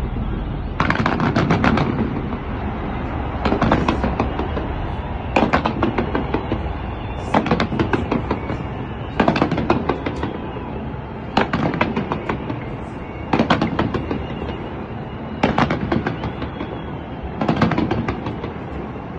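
Fireworks display: rapid volleys of sharp bangs in quick succession, a new volley about every two seconds, each lasting about a second.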